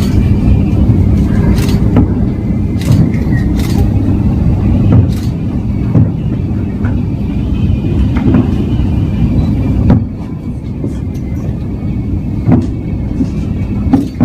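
Steady low rumble of a running motor vehicle, with a constant hum and a few light clicks; it gets a little quieter about ten seconds in.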